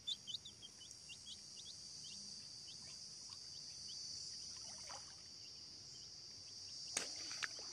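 Baby chicks peeping: rapid short high cheeps, dense at first and thinning out after a second or two, over a steady high hiss. A sharp click comes near the end.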